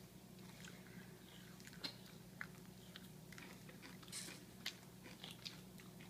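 Faint, scattered wet clicks and smacks of a toddler chewing rotisserie chicken with his fingers in his mouth, over a low steady room hum.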